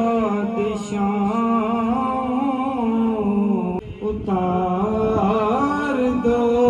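A man reciting a naat, an Islamic devotional poem, sung by a solo male voice into a microphone with long held, ornamented notes. He pauses briefly for breath about four seconds in.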